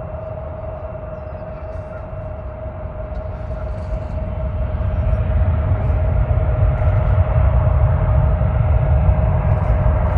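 Jet airliner engines: a steady high whine over a deep rumble that swells louder about halfway through and stays loud.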